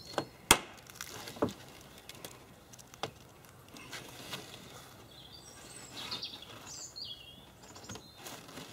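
Sharp plastic clicks and snaps as a wheel-arch trim strip is worked off a car bumper and its small white retaining clips pop loose, the loudest about half a second in, with a few softer clicks over the next few seconds.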